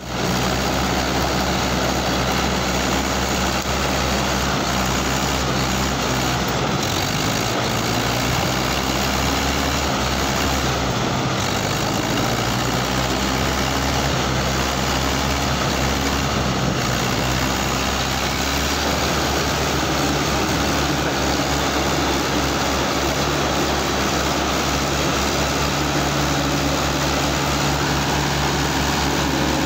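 Two Mahindra tractors' diesel engines running hard under heavy load as they pull against each other in a tug-of-war. The engine note shifts to a more pulsing beat about two-thirds of the way through.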